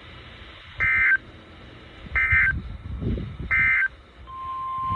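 Three short bursts of EAS/SAME digital data tones, the warbling end-of-message code that closes a weather warning broadcast. A single steady alert tone begins near the end.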